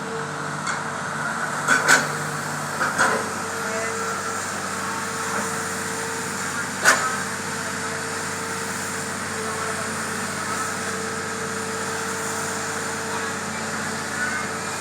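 Hitachi excavator's diesel engine running steadily, with a few sharp knocks over it, the loudest about seven seconds in.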